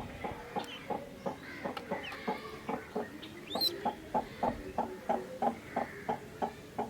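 Ducks quacking in a steady run of short calls, about three a second, with a brief high chirp about halfway through.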